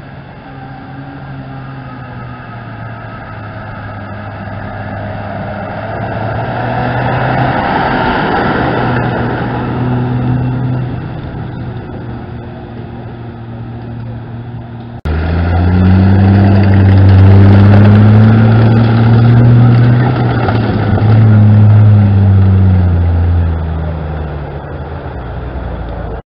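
Engines of historic military vehicles driving on a dirt track. One draws nearer and grows louder over the first several seconds. After an abrupt cut halfway through, a louder engine note rises and then falls in pitch as a vehicle passes, and the sound cuts off at the end.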